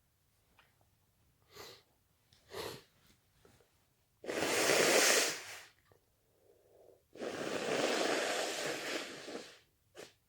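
A person sneezing and trying to muffle it: two short, sharp breaths in, then two loud, airy, stifled sneezes, the second longer, and one more quick breath near the end.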